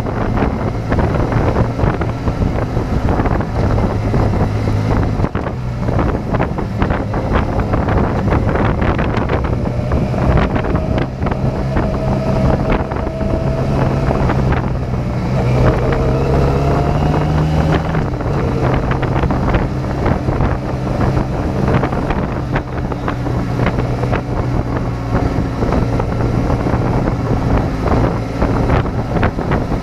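Motorcycle engine running at road speed under heavy wind buffeting on the microphone. The engine note climbs for a few seconds past the midpoint, then drops suddenly.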